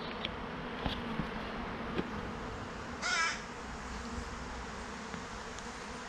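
Honeybees humming steadily around open hives, with one short harsh bird call about three seconds in.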